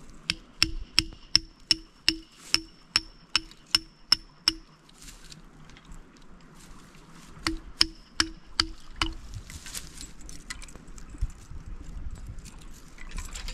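Hammer blows driving in a stake to anchor a beaver trap: about a dozen ringing strikes at roughly three a second, a pause of a few seconds, then five more strikes.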